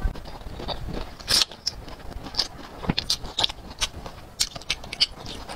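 Biting and chewing a whole grilled green chili pepper off a skewer: irregular crunches and mouth clicks, about two a second.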